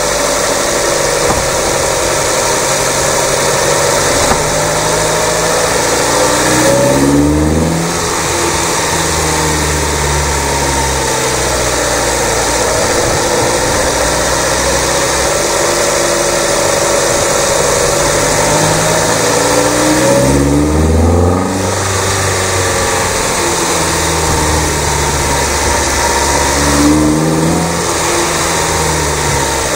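Mazda MX-5 (NB) 1.8-litre four-cylinder engine, breathing through a cold air intake with a cone filter, on a drive. The engine note rises and falls, with brief breaks at about seven, twenty-one and twenty-seven seconds in, over a steady rushing noise.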